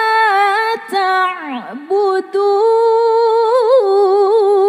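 A woman's voice reciting the Quran in the melodic tilawah style, unaccompanied, drawing a vowel out over long held notes. The line breaks off with a short swooping slide about a second in, then resumes on a long held note with quick wavering ornaments.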